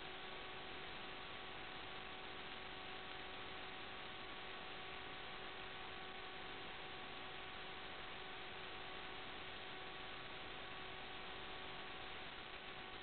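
Steady electronic hiss with a faint constant hum of a few thin tones in it. It is the empty audio channel of an analog FPV video link, and it carries no sound from the aircraft.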